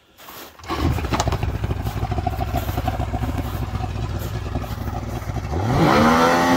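Engine running with a clattery rumble that comes in suddenly about a second in, then revs up sharply near the end and holds at high revs.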